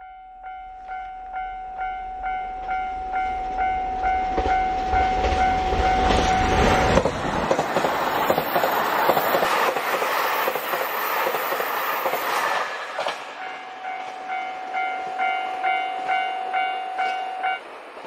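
Level crossing warning bell ringing in a steady repeated tone, two to three strokes a second, while a JR Hokkaido KiHa 261 series diesel express train runs past with a loud rumble and wheel clatter. The bell is heard again once the train has gone and stops abruptly near the end.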